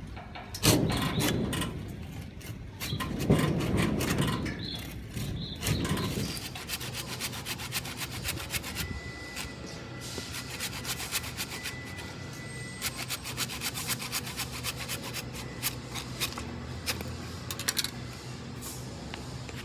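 Hand saw cutting through a thin tree branch, a long run of quick back-and-forth strokes of the toothed blade through the wood. A few dull low thumps come in the first several seconds, before the sawing settles in.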